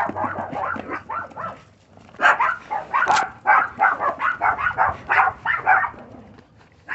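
Puppies yipping and barking in quick, repeated short yips, with a brief lull about a second and a half in before the yipping picks up again.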